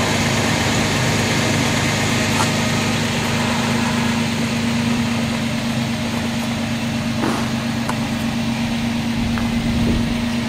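2005 Toyota Tacoma's 4.0-litre V6 idling, a steady hum.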